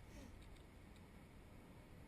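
Near silence: a faint low rumble, with a few faint ticks and a short squeak in the first half second.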